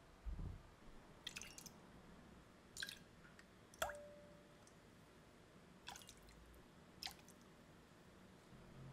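Quiet kitchen handling sounds: a few light clicks and taps spaced about a second apart, one of them ringing briefly, with a couple of soft low thumps at the start.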